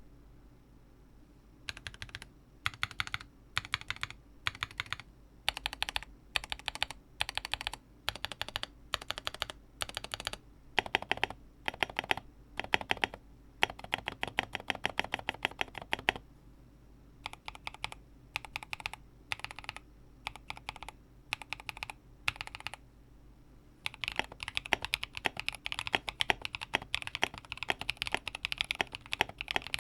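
Typing on a Lofree Block mechanical keyboard with TTC Full POM switches: keystrokes come in short bursts separated by brief pauses, then turn into steady, fast continuous typing for the last several seconds.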